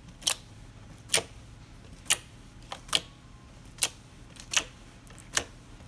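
Fingertips poking homemade borax slime, each poke giving a sharp click, seven or eight clicks spaced about a second apart.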